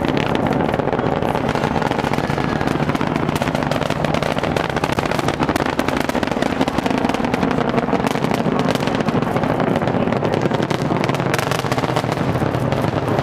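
Space Shuttle Endeavour's launch noise, from its two solid rocket boosters and three main engines as it climbs: a loud, steady rumble thick with rapid crackling.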